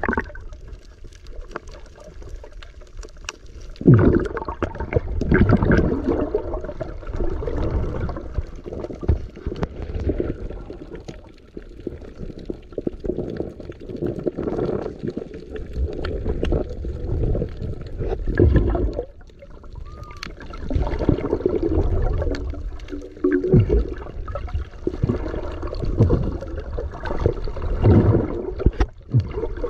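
Sea water sloshing and gurgling around a small fishing boat, in irregular surges every few seconds.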